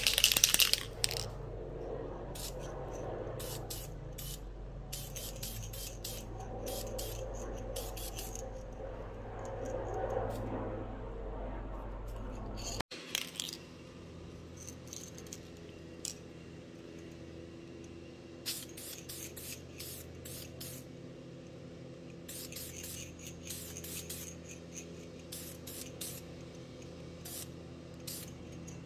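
Aerosol can of Minwax clear satin lacquer spraying a light coat onto a hand plane's handle: one longer hiss at the start, then many short hisses in groups, over a low steady hum.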